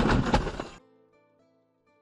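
A loud crunching impact noise, a jumble of knocks lasting about a second, which cuts off just under a second in, leaving only faint background music.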